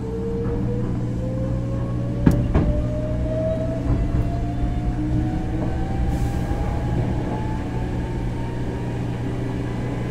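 Hankyu 6000-series electric train running, its traction motor and gear whine rising steadily in pitch as it gathers speed, over a steady low rumble. One sharp knock about two seconds in.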